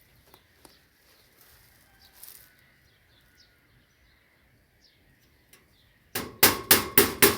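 Faint bird chirps, then about six seconds in a hammer starts striking fast and evenly, about four loud blows a second, as in driving nails during fence repair.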